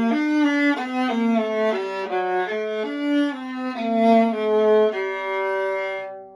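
Antique Mittenwald viola, c. 1890, 15.5-inch body, played solo with the bow through a flowing run of notes. It ends on a long held note that dies away near the end.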